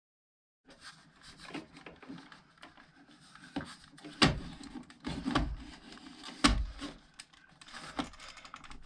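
Plastic clicks, knocks and rubbing from a BRK smoke alarm being handled and fitted onto its mounting plate, with the sharpest knocks about four and six and a half seconds in.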